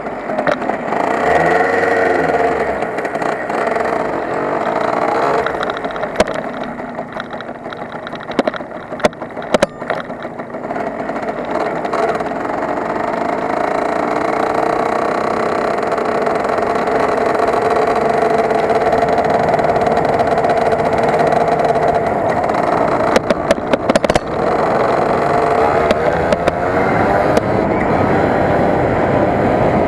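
Yamaha RD 80 LC's two-stroke single-cylinder engine running under way, its note rising and falling as the bike accelerates and eases off. A few sharp clicks come about a third of the way in and again later on.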